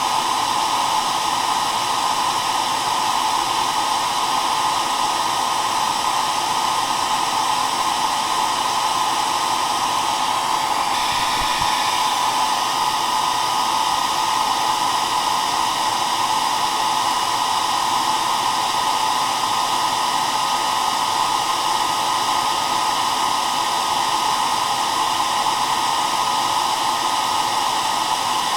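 Hair dryer running continuously with a steady blowing whir, its noise centred in the middle of the range with a faint steady tone above.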